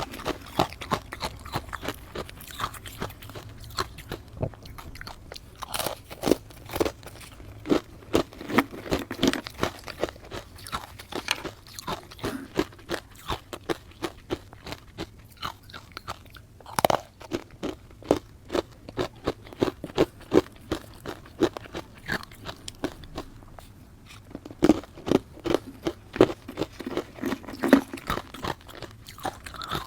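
Close-miked chewing of matcha-powdered ice: irregular crunching bites and the rapid crackle of the ice being chewed, with a few louder single cracks.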